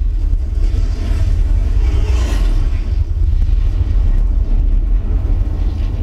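Deep, sustained explosion rumble from a film soundtrack played loud through two 12-inch TC Sounds Epic subwoofers, most of it very low bass, with a brief brighter rush of debris about two seconds in.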